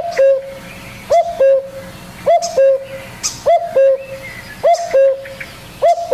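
A bird repeating a low two-note hooting call over and over, about once a second, with faint chirps of other birds behind it.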